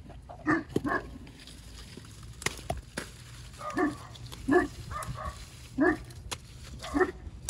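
A dog barking in short single barks, about seven spread over several seconds.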